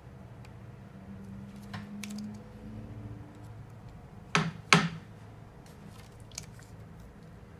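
Silicone grip tape being stretched and wound around the butt end of a hockey stick: faint crackles and rustles of the tape, with two sharp snaps close together about four and a half seconds in.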